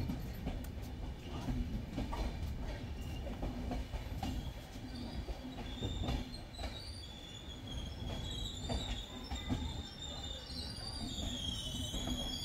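Indian Railways sleeper-class passenger train rolling slowly, with a steady low rumble and scattered knocks from the wheels on rail joints. From about halfway a high, wavering squeal sets in and grows stronger near the end as the train brakes into a station.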